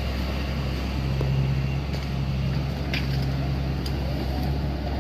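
Engine of road-construction machinery running steadily with a low, even hum, with a couple of brief clicks in the second half.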